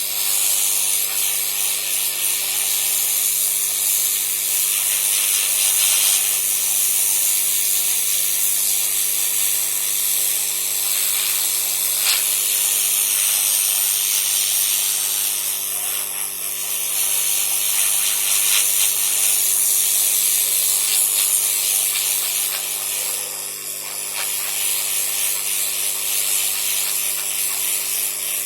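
Hot-air rework station blowing at full heat and full air onto a motherboard chipset to reflow it: a steady hiss of rushing air over a low, even hum from the blower's fan.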